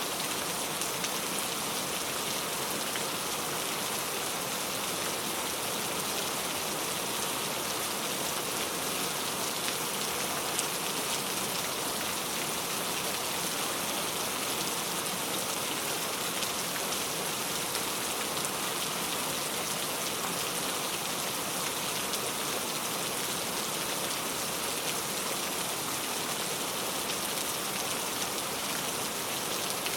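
Steady rainfall: an even hiss of rain with fine drop patter, unchanging throughout.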